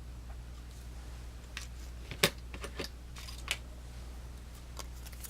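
Several light clicks and taps from small pocketknives being handled, the loudest about two seconds in, over a steady low hum.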